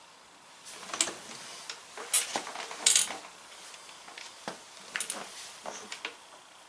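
A string of irregular sharp clicks and clatters of small hard objects being handled and knocked together, the loudest about a second, two seconds and three seconds in, with a few lighter ones later.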